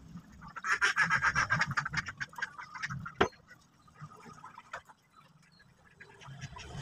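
Ducks quacking in a rapid chattering series for about two seconds, then a single sharp click about three seconds in.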